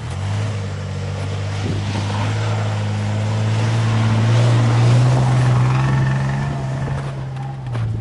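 Nissan Pathfinder SUV driving past on a snow-covered road, its engine pulling steadily under load, with tyre and road noise. The engine rises slightly in pitch and is loudest as the SUV passes about halfway through, then fades as it drives away.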